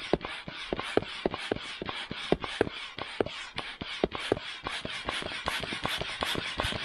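Small hand air pump being worked in quick strokes to inflate an inflatable PVC kayak. It gives rapid clicks, about four a second, over a steady rush of air.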